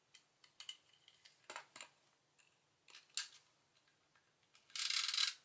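Tape-runner adhesive (SNAIL) being rolled onto cardstock: a run of small clicks and short scratchy strokes, then one longer, louder rasp as a strip of adhesive is laid down near the end. Paper is handled and pressed in between.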